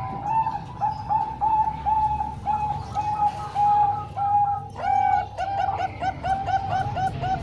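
Several zebra doves (perkutut) cooing together in strings of short, clear notes, with one longer note about five seconds in followed by a quicker run.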